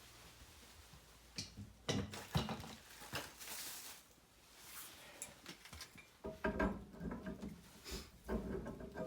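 Clinks and knocks of hard parts being handled, such as tools and metal plumbing fittings, in irregular clusters, with a short hissing stretch about three seconds in.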